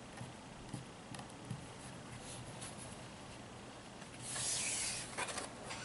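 Packaging being handled: faint rubbing and light taps, then a louder scraping rustle lasting under a second about four seconds in, followed by a few light clicks.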